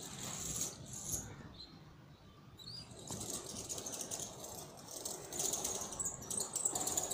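Wax-canvas roll-up rain blind being lowered and raised by a pull cord: the heavy canvas rustles and flaps in several bouts as it unrolls and rolls back up.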